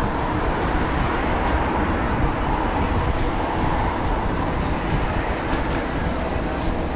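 Steady wind rush and rolling road noise on a bicycle-mounted action camera's microphone while the bike is ridden at speed, with a constant low rumble.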